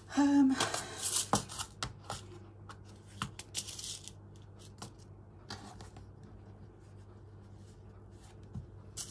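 Fabric and paper pieces being handled and arranged on a work surface: light rustling with scattered small clicks and ticks, busiest in the first few seconds, then quieter.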